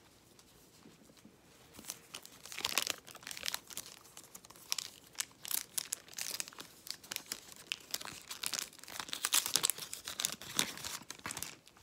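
Wrapper of a Megacracks trading-card pack being torn open and crinkled, in irregular crackling rustles that start about two seconds in.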